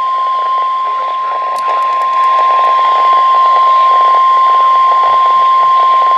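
NOAA Weather Radio 1050 Hz warning alarm tone: one steady, loud beep held without a break over a background hiss. The tone signals that a warning message follows.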